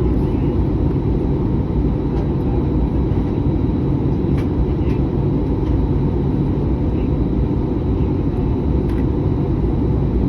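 Steady low roar of engine and airflow noise inside an Airbus A319 cabin during descent, with a few faint clicks.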